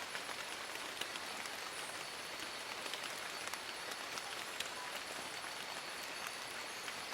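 Steady rain falling on forest leaves: an even hiss dense with small individual drop ticks.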